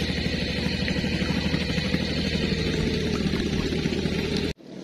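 A small engine running steadily at an even speed. It drops out abruptly for a moment near the end and comes back fainter.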